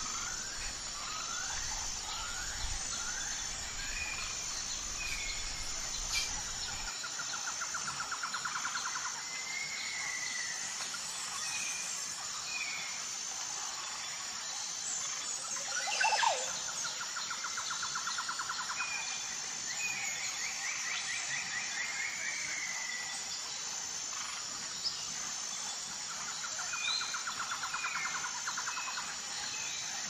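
Forest ambience: birds calling, with rising whistled notes, repeated trills and chirps, over a steady high-pitched insect drone. One louder, sharper call comes about halfway through.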